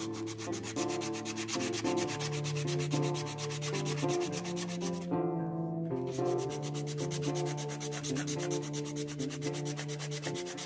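Hand sanding of a chef's knife handle of black walnut, ebony and brass scales: quick, even back-and-forth strokes of abrasive on the handle, with a short pause a little past halfway.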